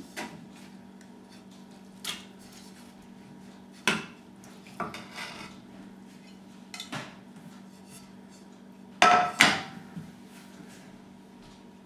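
A plate and a round metal pan clattering as they are handled and set down: several separate knocks and clinks, the loudest pair about nine seconds in, over a steady low hum.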